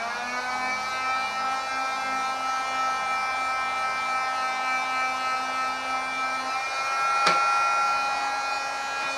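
Small handheld corded power tool running at a steady high whine as it cuts into a small block of hardwood, with one sharp click about seven seconds in.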